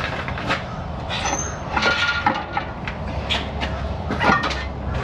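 Scattered metal clicks and knocks, with a brief ringing tone about two seconds in, as a transmission sitting on a transmission jack is shifted and worked onto the engine's alignment dowels. A steady low hum of the shop runs underneath.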